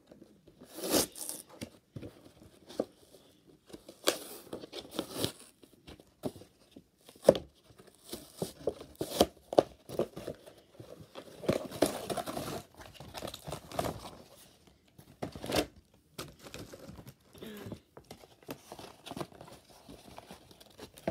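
Cardboard and plastic toy packaging being torn open and crinkled by hand, in irregular rustling bursts with sharp rips.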